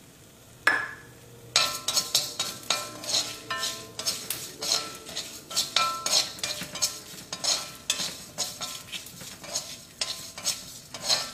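A metal spoon stirring and scraping dried red chillies, fenugreek seeds and urad dal around a dry iron wok, in short strokes about two or three a second with a light metallic ring; a single clink comes about half a second in, before the stirring starts. The spices are being dry-roasted for sambar masala.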